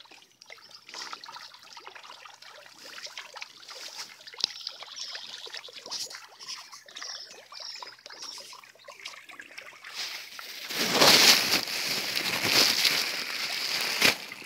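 Tambaqui feeding at the surface of a fish pond, making a low crackle of small splashes and water slaps. A louder rushing noise takes over for the last few seconds.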